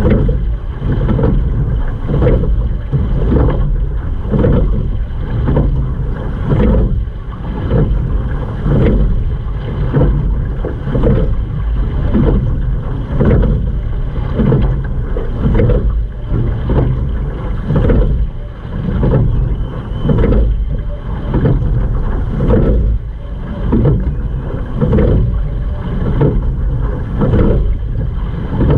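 Water rushing along the hull of a single sculling boat underway, surging with each oar stroke about every two seconds.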